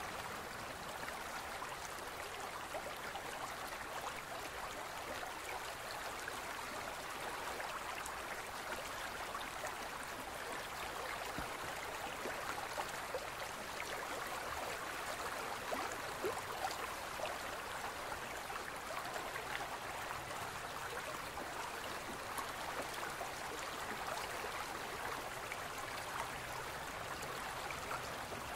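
A small stream flowing steadily, an even, gentle babble of running water.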